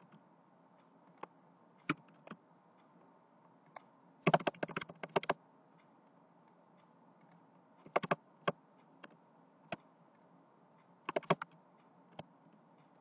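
Computer keyboard being typed on in short runs. There is a quick burst of about a dozen keystrokes about four seconds in, smaller runs near eight and eleven seconds, and single key taps in between.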